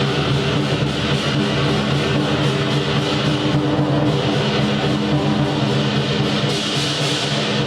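Rock band playing live, the guitar to the fore with long held notes.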